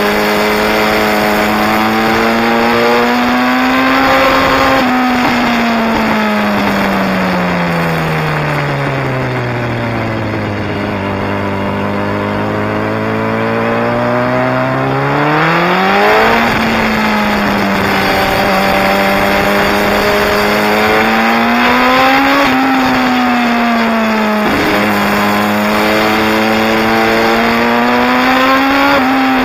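Sport motorcycle engine and exhaust under way, heard from the bike: the revs climb and drop sharply with gear changes. About five seconds in, the revs sink slowly for several seconds, then climb hard again.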